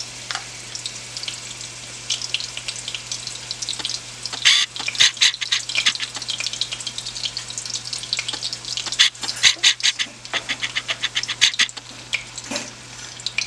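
Melted butter and olive oil sizzling in a hot saucepan, with many quick crackling pops. The crackling is densest about four to six seconds in and again about nine to twelve seconds in.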